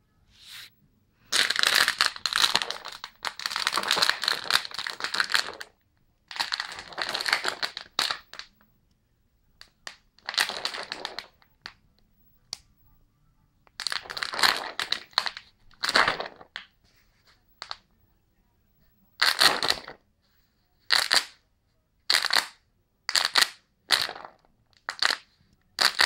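Plastic water bottle toy crackling and crunching as a dog bites and chews it, in irregular bursts: long stretches of crunching early on, then shorter bites a second or two apart.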